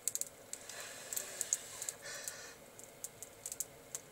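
Irregular sharp crackling clicks of high-current arcing where pliers and screwdriver leads carrying a few hundred amps touch a Pentium 4 processor's pins. Brief sizzling hisses come about a second in and again around two seconds, as the chip smokes.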